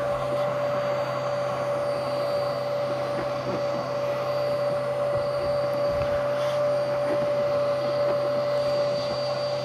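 A steady motor drone with a constant whine on one pitch, unchanging throughout.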